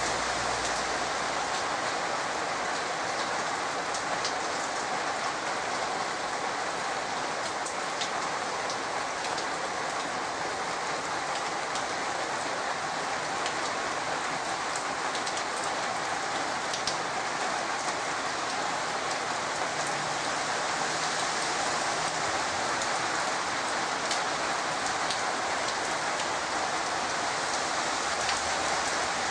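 Heavy rain falling steadily, with now and then a sharper tap of drops hitting a nearby surface.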